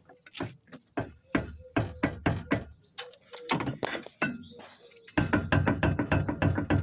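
Repeated hammer blows on metal, about three a second with a short ring after each, turning into a faster, denser run of strikes about five seconds in.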